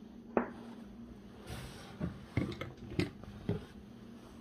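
Small glass nail-polish bottles clicking and knocking against each other and the table as they are handled and taken out of a cardboard box, with a brief rustle partway through.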